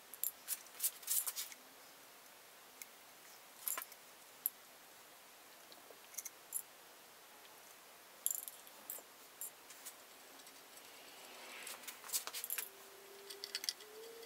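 Glue brush clinking and tapping against a small glass jar of glue and dabbing on wood, in scattered light clicks. Near the end a faint steady pitched tone comes in, stepping slightly up and down.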